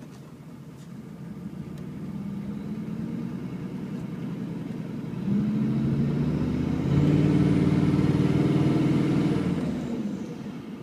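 6.5L V8 turbo diesel of a straight-piped GMC K2500 pulling hard under load, heard from inside the cab and building boost to about 9 psi. The engine note gets louder in two steps, at about five and seven seconds, with rising turbo hiss, then eases off near the end.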